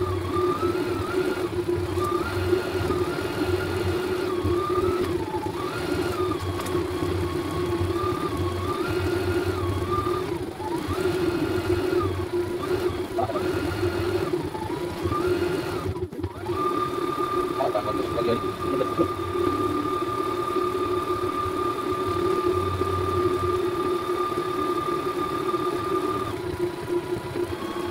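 CNY E900 computerized embroidery machine stitching a design: a steady motor hum with a whine that keeps stepping between two pitches, then holds one pitch from a little past halfway.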